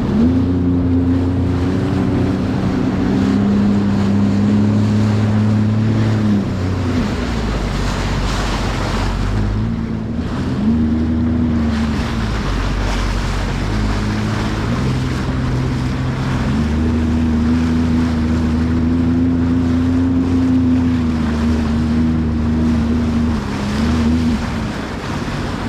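Sea-Doo jet ski engine running at speed, with wind buffeting the microphone and water hissing. The engine note falls and rises again a few times as the throttle is eased and reopened, dropping about six seconds in and again around twelve seconds in, then holding high before easing near the end.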